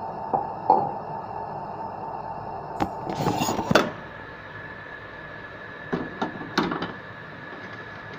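Metal clinks and knocks of an espresso machine's portafilter being handled and fitted into the group head: a few sharp knocks near the start, a rough scraping rustle about three seconds in, and a quick run of clinks near the end. A steady hum with a held tone runs underneath.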